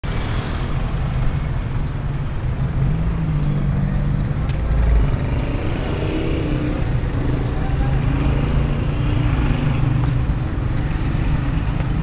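Street traffic: vehicle engines running steadily, with faint voices in the background and a short high-pitched tone about eight seconds in.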